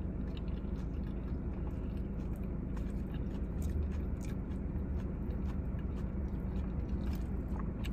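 A person chewing a mouthful of lettuce salad close to the microphone, with many small wet mouth clicks. A steady low hum runs underneath.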